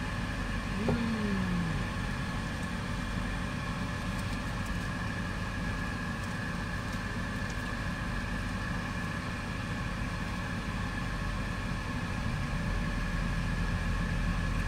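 Steady machine hum with a few fixed high whining tones over a low rumble, holding at an even level, and a brief falling sound about a second in.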